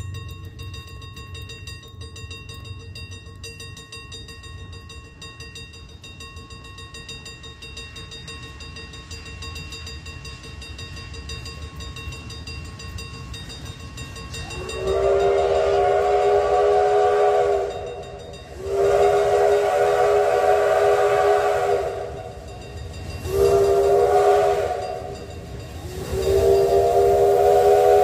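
Canadian National 7470's steam whistle, an 0-6-0 steam locomotive's chime whistle, sounding four blasts from about halfway in: long, long, short, long. This is the standard signal for approaching a grade crossing. Under it runs the low rumble of the approaching steam train.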